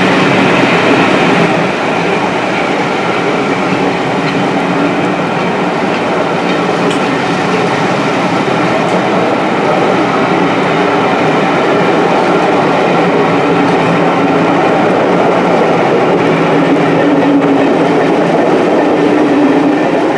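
Passenger coaches of a steam-hauled train rolling steadily past close by: a continuous rumble and hiss of wheels running on the rails.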